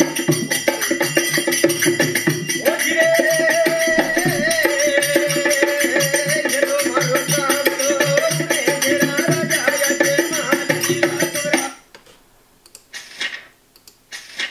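Traditional Indian song-and-dance music: a busy jingling, rattling percussion rhythm with a held melody line over it, cutting off suddenly near the end.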